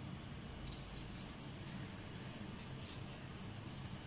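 Brief soft rustles of hands stroking a cat's fur and shifting on cloth, a few times over a low steady hum.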